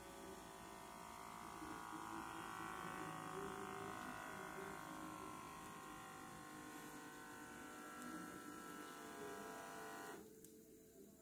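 Blood pressure monitor's small air pump motor running steadily as it inflates the cuff, cutting off suddenly about ten seconds in.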